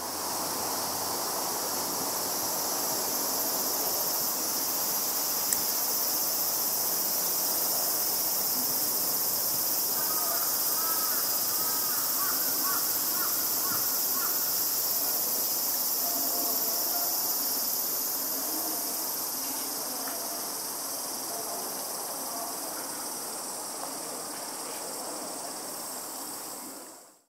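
A dense chorus of summer cicadas shrilling steadily, easing slightly near the end.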